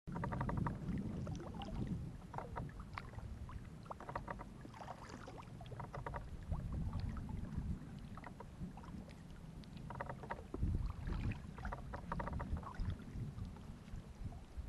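A double-bladed kayak paddle dipping and pulling through lake water, stroke after stroke, over a steady low wind rumble on the microphone, with scattered short clicks and ticks.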